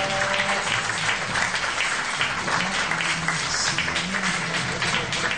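Audience clapping continuously over the show's music, whose low bass notes run underneath.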